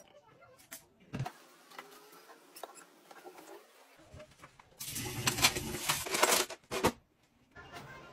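Dishes being washed in a stainless steel sink: scrubbing and the clatter of bowls and chopsticks, loudest between about five and seven seconds in.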